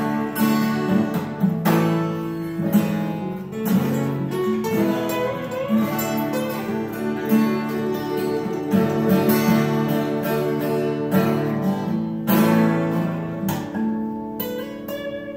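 Three acoustic guitars strumming chords together in a steady rhythm, ending on a final chord that rings out and fades near the end.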